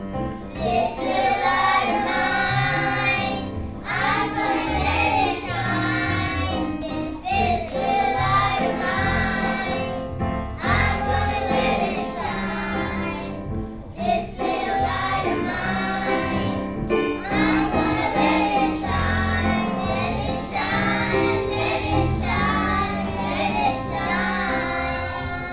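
Music: a group of voices singing together in phrases of a few seconds, with brief pauses between them, over instrumental accompaniment with a bass line.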